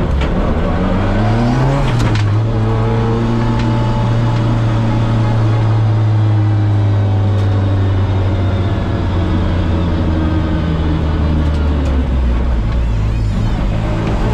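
Turbocharged Toyota 3S-GTE BEAMS inline-four in a Celica ST185 rally car, heard from inside the cabin while driving. The revs rise briefly over the first two seconds, with a couple of sharp clicks, then hold a steady drone and settle lower near the end.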